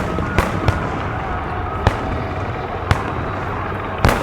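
Fireworks display: a series of separate sharp bangs from shells bursting, spaced irregularly a second or so apart, with two coming close together near the end.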